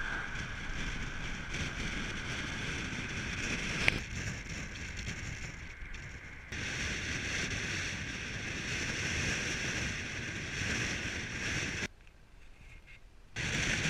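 Wind noise buffeting the microphone of a camera mounted on a moving car, with road noise underneath. A single sharp click comes about four seconds in. The rush drops to faint wind for a second or so near the end, then comes back loud.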